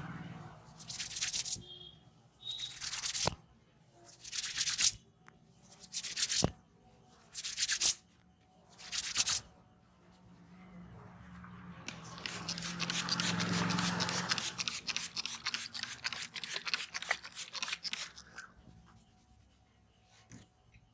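Hands rubbing over skin and hair during a head massage: a series of separate rubbing strokes about every second or so, then a stretch of fast continuous rubbing in the second half.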